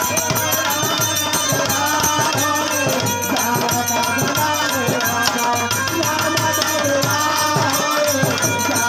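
Instrumental interlude of live Indian folk music: a tabla-like hand drum keeps a steady rhythm under a melody line.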